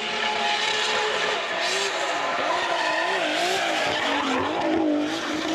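Nissan PS13 Silvia drift car sliding sideways at a steep angle, its tyres screeching continuously. From about two seconds in, the engine note rises and falls repeatedly as the throttle is worked through the slide.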